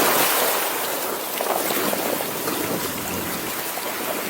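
Steady rushing noise of wind and sea water around a small boat at sea.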